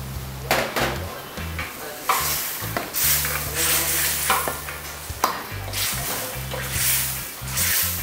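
A long steel ladle stirs and scrapes chicken curry around a black iron kadai, in irregular strokes about once a second, over a steady sizzle from the curry cooking with freshly added milk.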